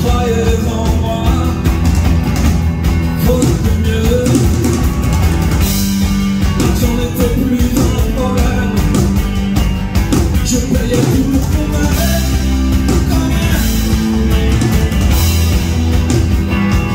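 Live rock band playing loud and steady: drum kit with cymbals, strummed acoustic guitar and electric guitar through the stage PA.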